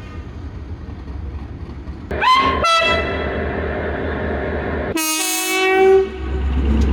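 Train horn sounding over the steady rumble of a moving train: a blast about two seconds in that bends up in pitch and holds for roughly three seconds, then a second blast about five seconds in lasting about a second. The sound ends abruptly at the end.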